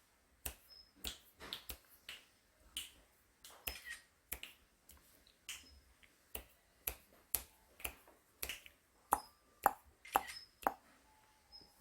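A run of sharp, irregular clicks or snaps, roughly two a second, with a few louder ones near the end.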